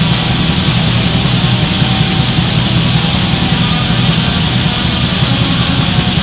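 Black metal song: a dense, unbroken wall of distorted electric guitar at steady loudness.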